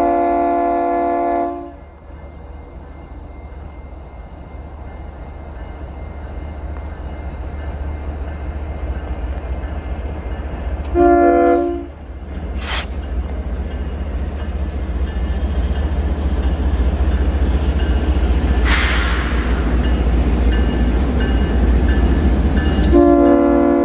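Chord horn of a Union Pacific GE diesel locomotive sounding a long blast at the start, a short blast about 11 seconds in, and another long blast beginning near the end. Between the blasts the low rumble of the diesel engines and the rolling freight train grows steadily louder as it approaches and passes.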